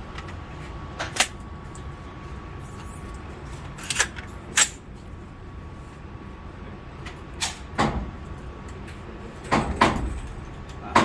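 Single gunshots from a Daniel Defense MK18, a short-barrelled 5.56 AR-style pistol, fired at an uneven pace. About seven sharp shots come a second or more apart, some close together in pairs.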